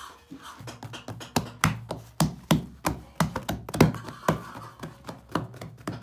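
Hands slapping and patting bread dough: a run of sharp, irregular slaps, about two or three a second.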